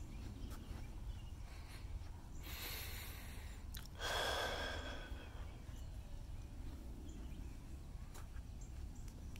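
A person's breathing close to the microphone: a soft breath about two and a half seconds in, then a louder breath about four seconds in, over a steady low rumble.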